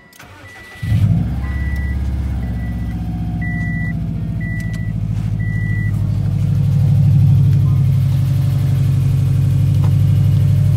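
A Subaru Impreza's flat-four boxer engine starts about a second in, cold in sub-freezing air, and then idles steadily. During the first six seconds the car's warning chime beeps about seven times, roughly once a second.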